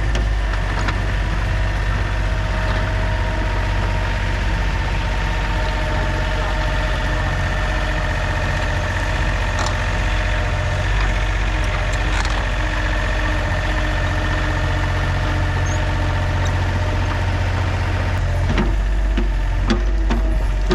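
John Deere 30 (Yanmar-built) compact excavator's diesel engine running steadily, with a few clanks, most of them near the end.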